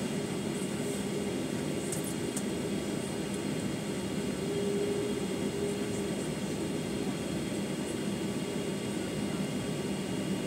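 Cabin noise inside a Boeing 737-900ER on the ground with its CFM56-7B engines at idle: a steady low rumble with a steady hum and a faint high whine.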